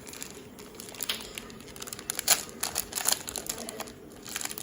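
Irregular clicks, taps and crinkles of a Pokémon card deck's cardboard and plastic packaging being opened and handled.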